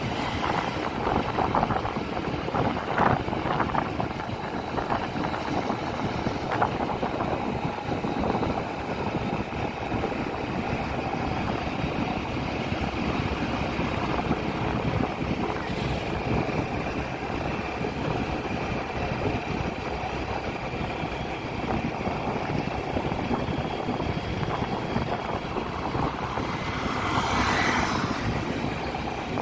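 Wind buffeting the microphone of a phone held on a moving motorcycle, over the steady running of the motorcycle's engine at road speed. A louder rush of noise swells briefly near the end.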